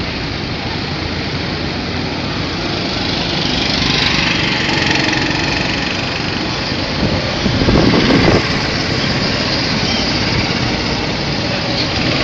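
Small go-kart engines running as a field of karts drives round the track, a steady mechanical drone. It gets louder for a second or so about seven seconds in, as karts come close.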